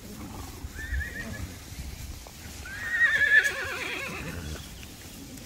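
Horse whinnying: a short quavering call about a second in, then a louder, longer whinny with a shaking pitch about three seconds in.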